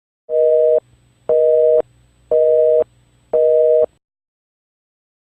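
Telephone busy signal: four evenly spaced beeps of a steady two-note tone, each about half a second long.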